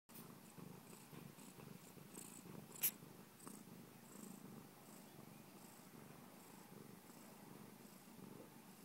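Faint, steady cat purring, a low pulsing rumble, as a kitten nurses. There is one sharp click a little under three seconds in.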